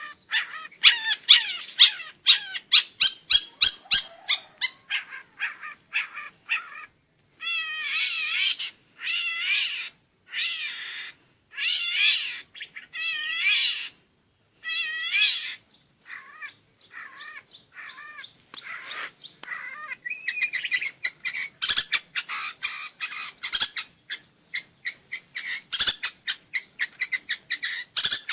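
Long-tailed shrike (cendet) singing gacor, in full continuous song. It opens with quick repeated notes, moves to a run of warbled phrases about a second long with short gaps between them, and near the end breaks into a dense, fast, loud chatter.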